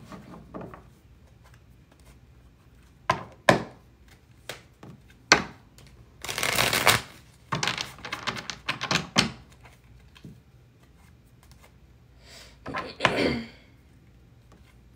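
Tarot cards being shuffled by hand. Scattered sharp taps and snaps of the cards, with a longer rustle of shuffling about six to seven seconds in.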